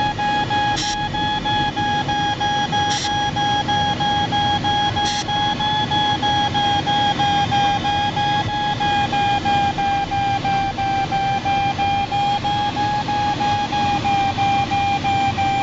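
Glider's audio variometer sounding a steady, slightly pulsing high electronic tone, the climb signal of a sailplane rising steadily in lee-wave lift, over the rush of air past the cockpit canopy.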